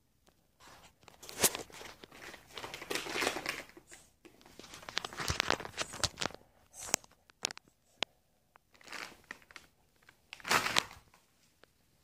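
Close crinkling and rustling handling noise in irregular bursts, with a few sharp clicks, as a Halloween mask is handled and pulled on. The loudest bursts come about a second and a half in and again near the end.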